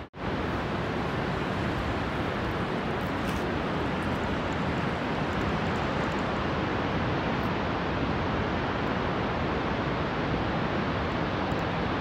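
Steady, even rushing roar of the Vøringsfossen waterfall, with a momentary dropout right at the start.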